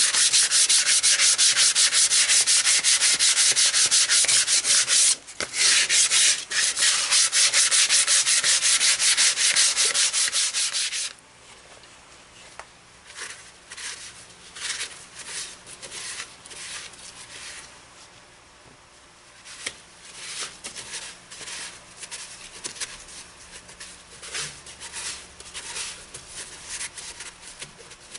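A tool worked against a redbud bowl spinning on a Nova 16/24 lathe, with a loud, rapidly repeating rasp. It breaks off briefly about five seconds in and stops about eleven seconds in, giving way to lighter, intermittent touches against the wood.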